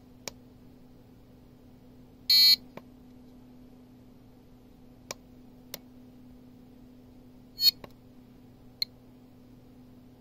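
GQ GMC-500 Geiger counter beeping twice, short high electronic beeps, as it is switched off and started up again. A handful of sharp single clicks fall between the beeps.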